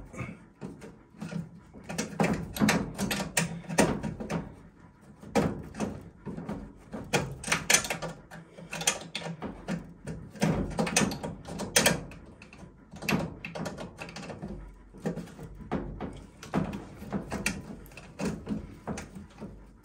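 Irregular clicks, knocks and rustles of hands working inside a furnace's sheet-metal cabinet, pushing a bundle of wires aside to reach the transformer's small mounting screws.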